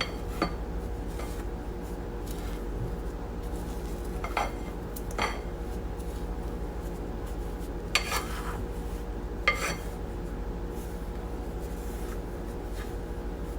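A spoon stirring dry ingredients (powdered sugar, almond flour and salt) in a mixing bowl, with about five sharp clinks of the spoon against the bowl spread through the stirring.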